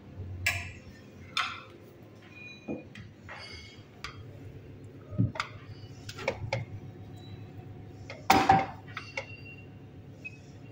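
Dishes and serving utensils knocking and clinking as food is dished out, a scattered run of separate knocks with a few short ringing clinks and one louder clatter about eight seconds in.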